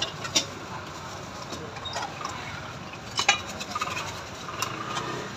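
Scattered light clinks and clicks of steel bowls, spoons and dishes being handled at a noodle stall counter, a few separate knocks over steady background noise.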